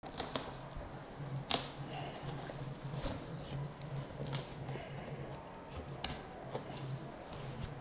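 Unboxing handling noise from a large cardboard shipping box with foam packing: scattered rustles, scrapes and light knocks of the cardboard flaps and foam sheet, the sharpest about a second and a half in, over a low steady hum.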